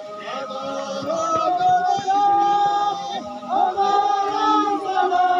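Several voices singing a traditional Ladakhi wedding song together, in long held notes.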